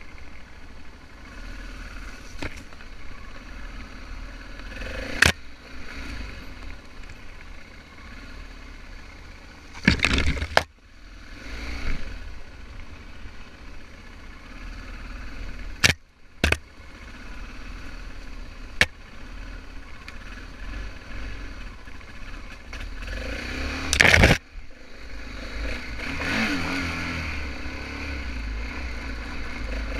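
BMW F650GS motorcycle engine running while riding off-road, with about six sharp knocks through the ride, the loudest near the end. In the last few seconds the engine gets louder and revs up.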